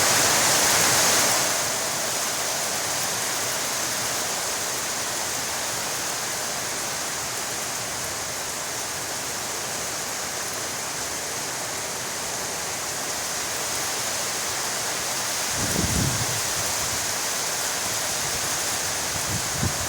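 Heavy rain falling steadily as an even hiss, a little louder in the first second or two. There are two brief low thumps, one about three-quarters of the way through and one near the end.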